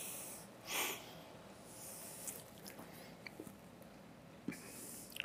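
A quiet pause with a man's breaths into a microphone, a short one about a second in and another near the end, and a few faint clicks and rustles between them.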